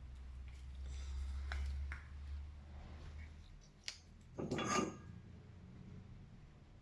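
Small metal tools clicking and tapping on a phone-repair bench, with one brief louder clatter about four and a half seconds in, over a low steady hum.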